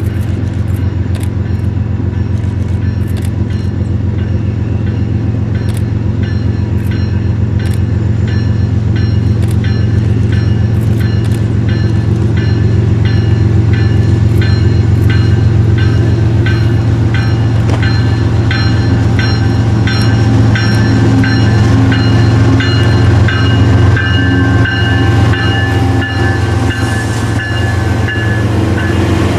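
Diesel-hauled train rolling past: a steady low engine rumble with wheels clicking over the rail joints in a regular rhythm, growing slowly louder, with faint high ringing from the wheels in the second half.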